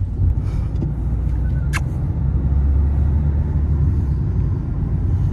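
Car driving: a steady low road-and-engine rumble that begins abruptly. A brief high squeak comes just under two seconds in.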